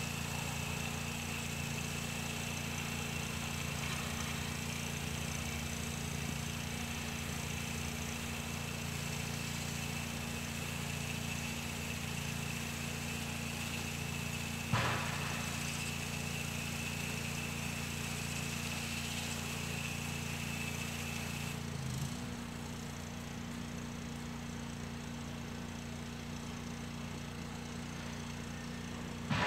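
Gas-engine pressure washer running steadily, with the hiss of the high-pressure spray from the wand on house siding. About three-quarters of the way through the spray stops and the engine note shifts as it runs on without the load; a brief click comes about halfway.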